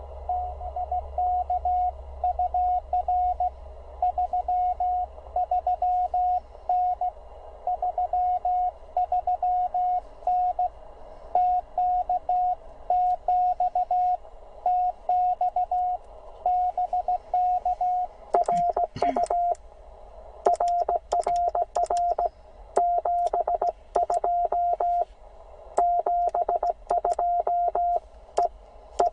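Morse code (CW) tone of about 700 Hz from an HF transceiver, keyed in dots and dashes. At first it is a received station's signal over steady band hiss. About two-thirds in, the operator starts sending: a cleaner sidetone with silent gaps between elements and a crisp click from the paddle key on each element.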